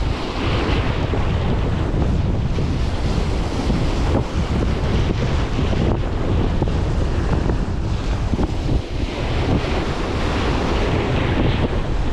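Wind buffeting a GoPro microphone with a steady low rumble, over the wash of sea waves.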